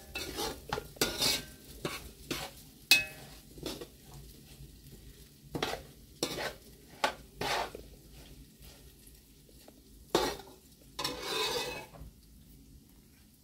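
A metal spoon scrapes and knocks against a large metal pot as seasoned rice is stirred over the heat, with a light sizzle from the browning rice. The strokes come thick and fast at first, then sparser, with one longer scrape near the end.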